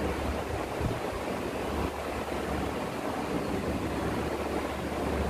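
Steady background noise: an even hiss with a low hum underneath that swells and fades a few times.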